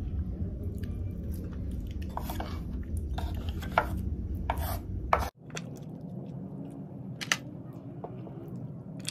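Close-up eating sounds of sea grapes being chewed and handled: a run of crisp clicks and crunches over a steady low hum that cuts off suddenly a little past halfway. After that come sparser clicks as a sea snail is picked from its shell.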